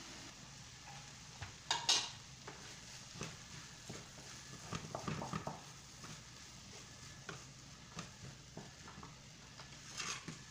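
Wooden spatula scraping and knocking against a nonstick frying pan while stirring diced potato, with a faint steady sizzle underneath. The loudest knocks come about two seconds in, with a busier run of scrapes around the middle and another knock near the end.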